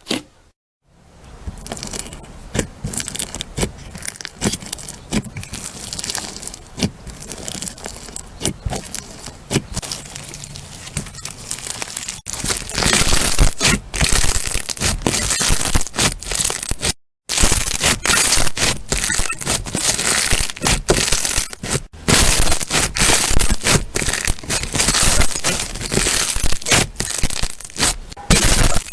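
Crunchy slime being worked, giving a dense run of crackling, popping clicks. It gets louder after about twelve seconds, with brief silent breaks where one clip cuts to the next.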